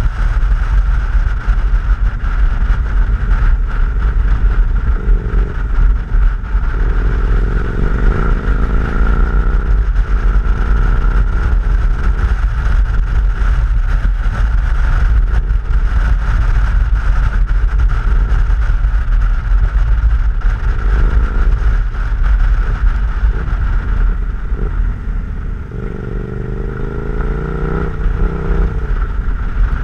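KTM 990 SMT's V-twin engine running on the move, its note rising and falling with the throttle a few times, around the middle and again near the end, under heavy wind rumble on the helmet-mounted camera's microphone.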